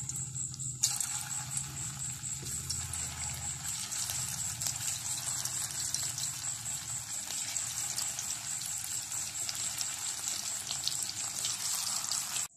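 Paneer balls sizzling in hot sunflower oil as they deep-fry, a steady sizzle with small crackles that picks up about a second in as more balls go into the oil.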